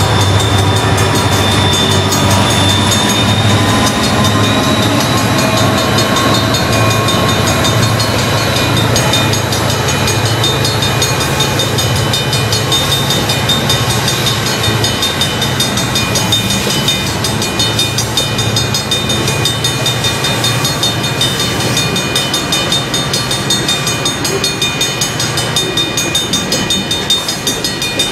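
Diesel freight locomotive running as it passes at first, giving way to a long string of freight cars rolling by, their wheels clattering in a rhythmic pulse over the rail joints.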